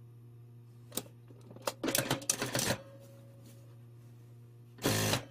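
Fabric pieces being handled and shuffled beside a sewing machine, with a click about a second in, then the sewing machine stitching in a short burst near the end, over a steady low hum.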